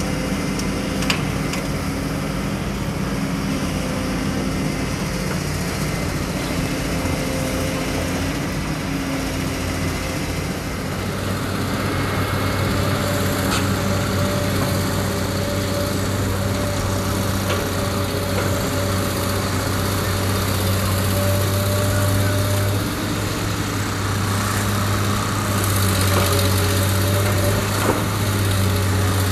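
Diesel engines of hydraulic excavators working, with a dump truck standing by, running steadily. About eleven seconds in a deeper engine hum grows louder and holds, with a few short knocks here and there.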